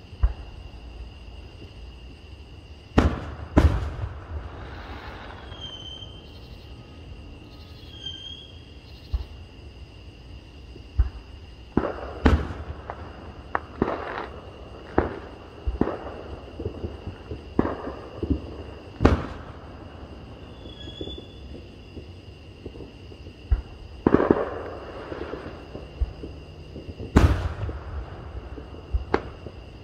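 Aerial fireworks shells bursting in an irregular series of sharp bangs, about fifteen in all, some followed by crackling as the stars burn out.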